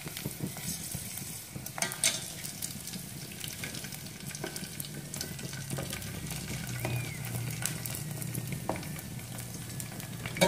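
Prawn crackers sizzling and crackling in hot oil as they puff up, stirred with wooden chopsticks in a stainless steel pot. A few sharp taps stand out, the loudest about two seconds in.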